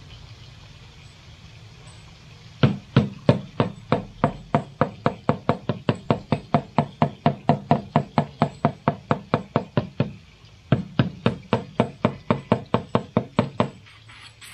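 Fast, even knocking, about four knocks a second, that stops briefly about ten seconds in and then carries on for a few seconds more.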